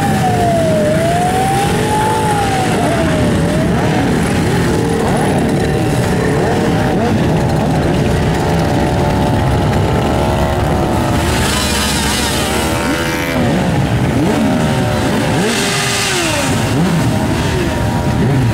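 A parade of many motorcycles riding slowly past at once, a dense mix of engines whose pitches rise and fall as riders blip their throttles. The revving swells louder about eleven seconds in and again about fifteen seconds in.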